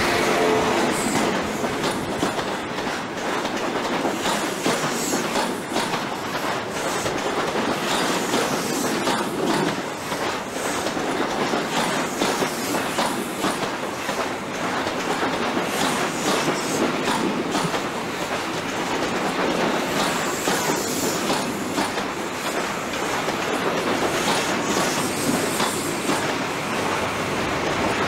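InterCity 125 High Speed Train's coaches rolling past at low speed, their wheels clicking steadily over rail joints.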